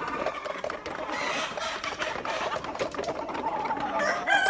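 A flock of Australorp chickens clucking and calling, with many small clicks among them. Near the end a rooster begins to crow, a long, slightly falling call.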